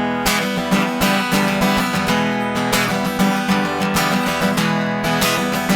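Acoustic guitar strummed in a steady rhythm, an instrumental passage of a live song with no singing.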